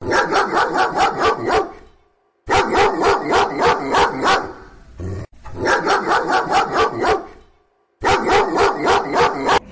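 Dog barking in four quick, evenly timed runs of about eight barks each, with short pauses between the runs.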